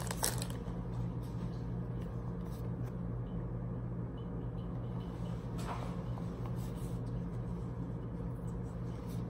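Steady low hum of a running ceiling fan, with a few faint soft rustles and taps of trading cards being handled.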